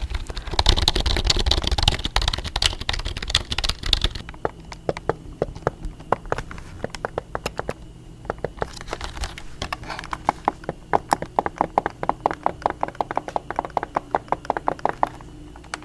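Rapid typing on a computer keyboard, a quick run of sharp keystroke clicks. It follows about four seconds of louder rustling and handling noise at the start.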